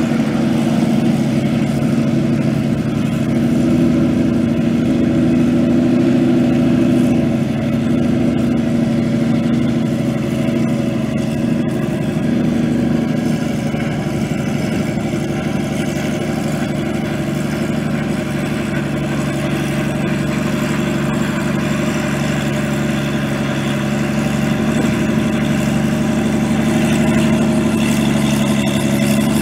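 Robinson R44 helicopter's six-cylinder Lycoming piston engine running steadily at low power during start-up, while the main rotor turns up from a slow spin.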